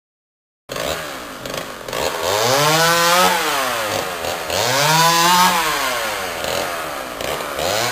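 Chainsaw engine cutting in suddenly near the start and revving up and down twice, then running on with smaller rises and falls in pitch.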